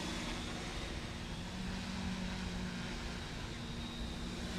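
Quadcopter's four 900 kV brushless motors and propellers running steadily in flight: a steady low hum with a faint high whine over a haze of rushing air.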